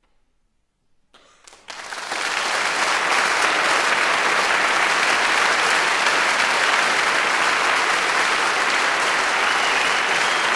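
Audience applause breaking out after near silence about a second and a half in, quickly swelling into steady, full clapping.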